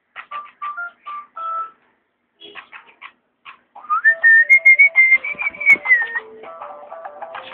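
A short run of evenly spaced electronic-sounding beeping notes, a pause of about two seconds, then a long high whistled note that rises, holds and falls over about two seconds over a lower melody.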